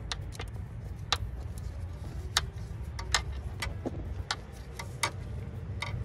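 Scattered sharp metallic clicks and ticks as a glow plug is screwed by hand with a tool into the cylinder head of a Mercedes 240D diesel, over a steady low rumble.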